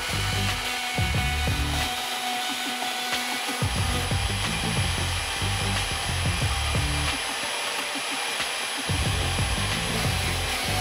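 Background music with a stepping bass line, which drops out twice, over the steady running whine of a Milwaukee portable bandsaw cutting sheet steel.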